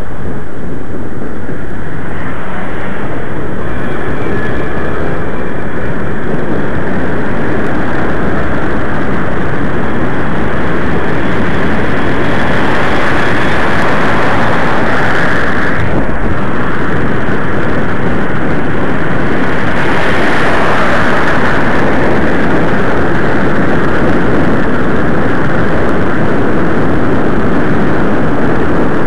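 Loud, steady rush of wind on the microphone of a camera moving on a bicycle, mixed with road noise from city traffic. It swells for a few seconds twice, about halfway through and again a little later.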